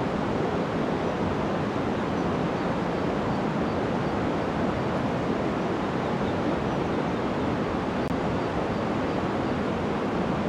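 Flowing river water rushing steadily, an even noise with no breaks.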